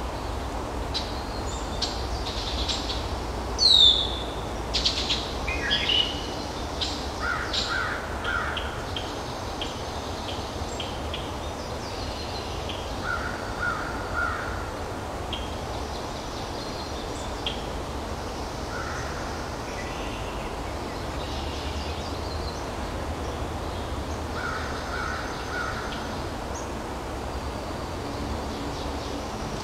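Woodland birds chirping and calling. A loud falling whistle comes about four seconds in, and a lower call in groups of three recurs about every five to six seconds, over a steady low background hum.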